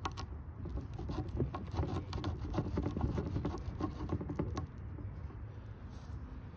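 Close-up handling noise of a squirrel carcass being cut and skinned with a small knife, heard as irregular crackling clicks and rubbing, with a cloth sleeve brushing against the phone microphone. It quietens after about four and a half seconds.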